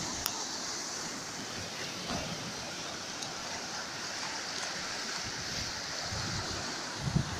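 Sea surf washing steadily on the shore, with a few low thumps near the end.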